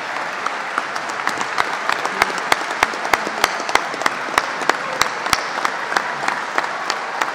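Audience applauding, with one set of hands clapping loudly and close by at about three claps a second through the middle.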